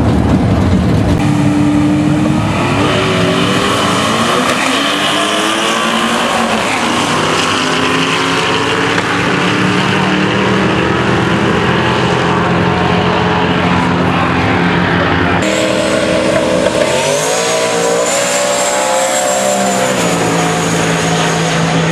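Drag-race car engines at full throttle on passes down the strip, the pitch climbing and then holding. The sound changes abruptly about two-thirds of the way through as another car's run begins, its engine pitch rising again.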